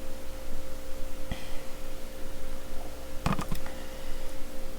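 A few light clicks and knocks from handling the kit's parts, with one sharp click about a second in and a short cluster a little past the middle, over a steady electrical hum.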